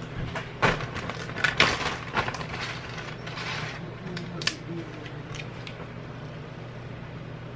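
A bag of tortilla chips being handled: a few sharp crinkles and crackles of the bag in the first half, over a steady low hum.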